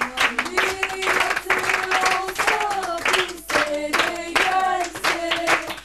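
A group of women singing together to rhythmic hand clapping.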